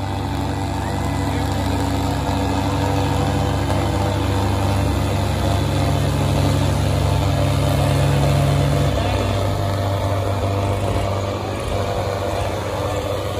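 Two tractors' diesel engines running hard under load as they pull against each other in a tractor tug-of-war. One engine's note drops away about nine seconds in.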